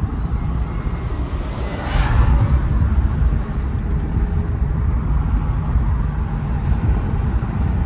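Steady low rumble of road and engine noise from a 2018 Mercedes-AMG E43 driving along, heard inside the cabin, with a brief swell of hiss about two seconds in.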